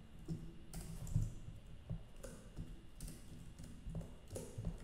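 Computer keyboard keys clicking faintly and irregularly.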